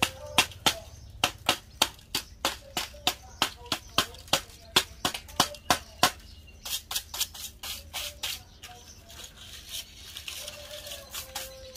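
A metal blade chopping at a broom, giving sharp, regular knocks about three a second. There is a short pause around six seconds, and the strokes grow sparser and softer near the end.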